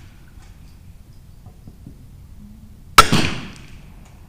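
A single .22 LR rifle shot from a RimX-action benchrest rifle, about three seconds in: a sharp crack that rings away over about a second.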